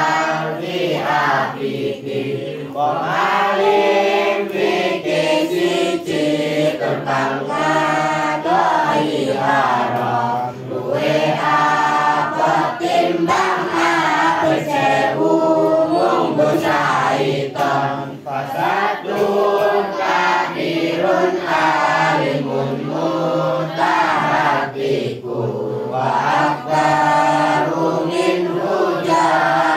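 A group of girls chanting a melodic Arabic prayer recitation in unison, one of them singing into a microphone.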